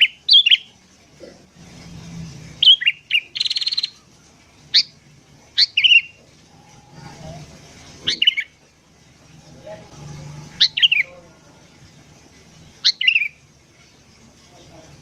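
Sooty-headed bulbul (kutilang) calling in short, quick phrases of falling chirps, one phrase every one to two seconds, with a brief harsh buzz about three and a half seconds in.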